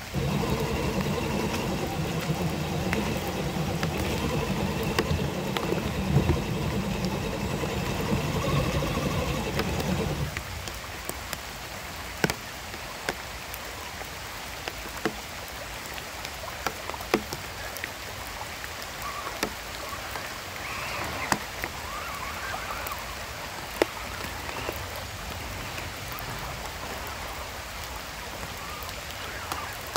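RC crawler's motor and gears whining steadily as it drives through shallow creek water, stopping about a third of the way in. After that come running water and many sharp ticks of water drops, with a fainter motor whine coming and going around two-thirds through.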